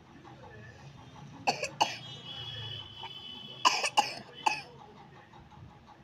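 A child's dry cough from a cold: two coughs about a second and a half in, then three more in quick succession around four seconds in.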